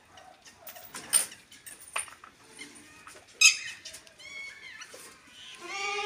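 A few sharp clicks or knocks, the loudest about three and a half seconds in, then some short high squeaky calls. Near the end a farm animal begins a long, steady bleat.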